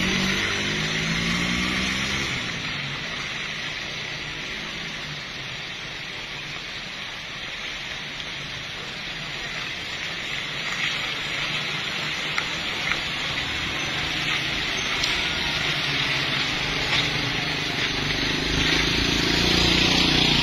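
Vehicle engines running past on a wet road over a steady hiss. An engine revs at the start, the sound drops quieter through the middle, and an engine grows louder again near the end.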